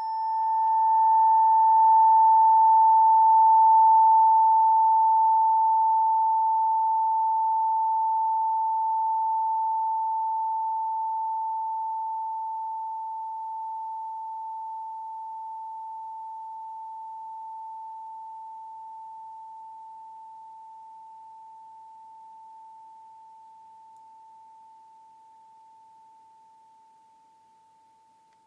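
888 Hz MI tuner tuning fork ringing after being struck: one pure, steady tone that slowly fades away over nearly half a minute. A faint higher overtone dies out within the first several seconds.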